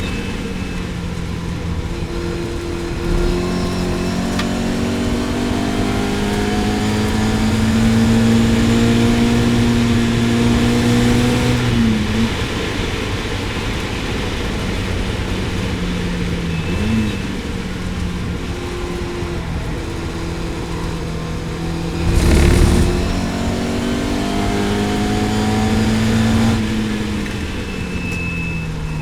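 Lotus Elan GTS race car engine under hard acceleration, its revs climbing and then dropping sharply at gear changes, and falling away near the end as it slows. A short loud thump about three-quarters of the way through.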